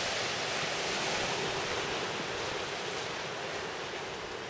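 Sea surf washing over a rocky shore: a steady rushing hiss with no distinct breaks, easing slightly near the end.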